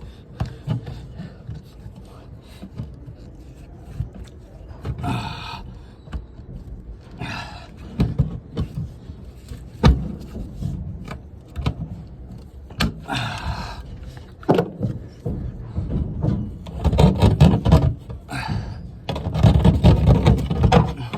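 Work noise on sheet-metal ductwork: scattered knocks and clicks, a few short scraping bursts, and heavier rumbling handling noise near the end.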